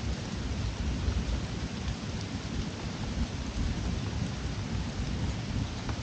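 Steady rain falling, an even hiss of drops, over a low, fluctuating rumble.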